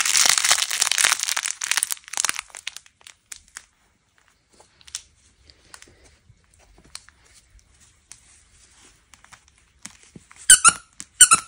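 Plush s'more dog toy with crinkle-paper ends crackling loudly as it is squeezed for the first two seconds, then faint scattered rustles. Near the end its squeaker gives several sharp, high squeaks as the dog bites it.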